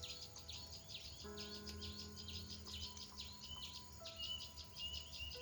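A bird chirping in a fast run of short high notes, several a second, over a low steady rumble of outdoor noise. In the second half a thin, wavering higher note joins in.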